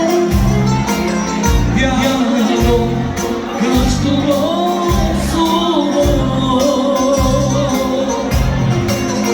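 Live band playing Albanian dance music, with a steady heavy bass beat about once a second and a wavering melody line over it.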